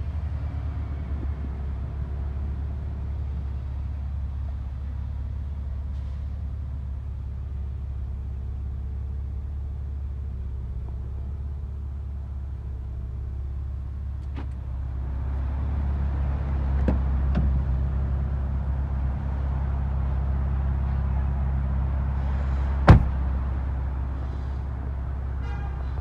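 Steady low hum of the 2018 Porsche Macan GTS's twin-turbo V6 idling, heard from inside the cabin. It grows a little louder about halfway through, and there is a single sharp click a few seconds before the end.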